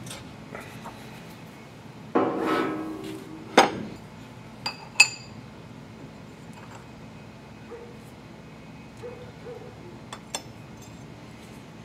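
Steel bearing races and a press driver clanking and clinking against a wheel hub on an arbor press. There is a short squeal about two seconds in, a sharp clank, then two lighter ringing clinks, and a few soft clicks near the end.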